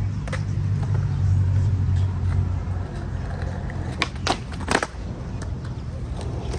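Skateboard wheels rolling on concrete with a steady low rumble, then several sharp clacks of the board hitting the ground about four to five seconds in.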